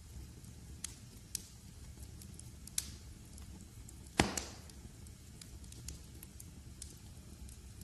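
Wood fire in a fireplace crackling over a steady low rumble of flames, with scattered small crackles and one loud pop about four seconds in.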